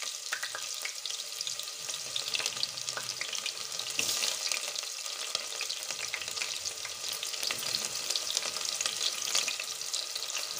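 Chopped onions frying in hot oil in an aluminium pressure cooker: a steady, crackling sizzle.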